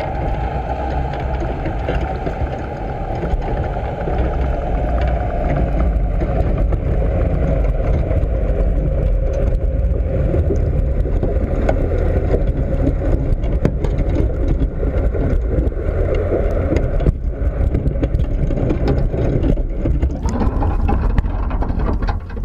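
Muffled, steady underwater rumble picked up through a GoPro's waterproof housing inside a crab trap. Near the end it brightens and changes as the trap is hauled up out of the water.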